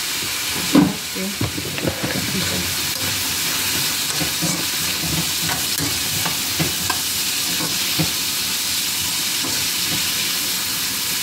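Diced vegetables sizzling in a non-stick skillet while they are stirred with a spatula, with light scrapes and taps of the spatula on the pan. There is one louder knock about a second in.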